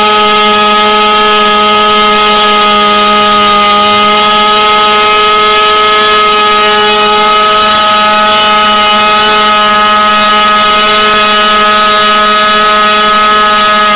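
JBA .46 two-stroke glow model-aircraft engine running on a bench test stand at a steady high speed during its break-in. It is very loud and holds one even pitch.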